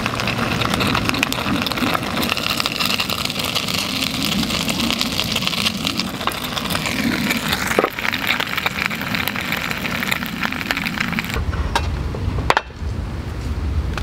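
Food sizzling and crackling inside a cast-iron hot sandwich maker over a portable gas burner, with the burner's steady hiss. About eight seconds in there is a knock and the sizzle thins, leaving the bare burner flame hissing. Near the end this gives way to a low rumble and one sharp click.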